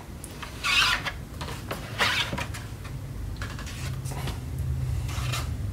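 Metal spatula scraping leftover blended screen-printing ink off the screen mesh, a few short scrapes, over a low steady hum.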